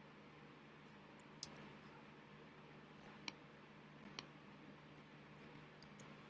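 Faint, sharp clicks and smacks from a person signing, scattered a few times over a steady low room hum, the loudest about one and a half seconds in.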